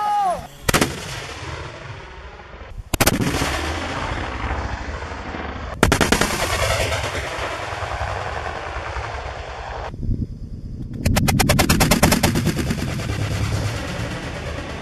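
Black-powder cannons firing, four shots in turn, each followed by a long rolling rumble; the last, near eleven seconds, is the loudest.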